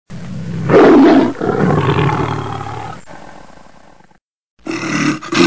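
A loud roar that swells sharply about a second in, then fades away over the next three seconds. After a brief silence, a second loud sound starts near the end.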